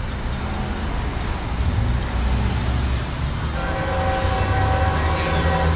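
Approaching Norfolk Southern freight train with GE ES44AC diesel locomotives, heard as a low rumble. A little over halfway in, the locomotive's air horn sounds a steady chord of several notes, held to the end.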